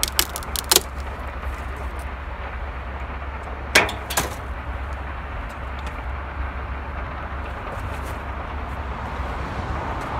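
Steady outdoor background noise of road traffic and distant construction machinery, a low rumble with an even hiss over it. A few sharp clicks come near the start and a louder pair about four seconds in.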